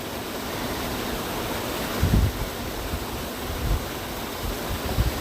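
Waterfall rushing steadily, with a few dull low thumps, the loudest about two seconds in.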